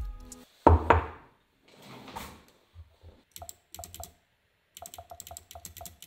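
Computer keyboard keys pressed in quick clusters over the second half. Two heavy thumps come about a second in.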